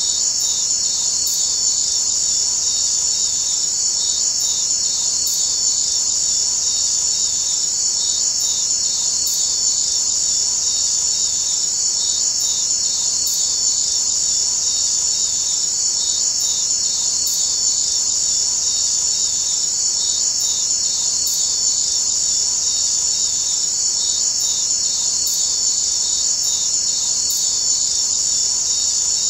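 Steady, high-pitched insect chorus, a cricket-like trilling at an even level throughout, with a faint regular pulse.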